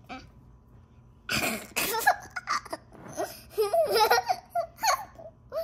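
A child laughing in a string of breathy, broken bursts, starting a little over a second in.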